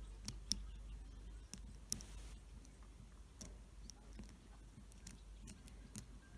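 Lock pick and tension wrench working the pins of a Draper heavy-duty padlock's six-pin cylinder: sharp little clicks and ticks at irregular intervals.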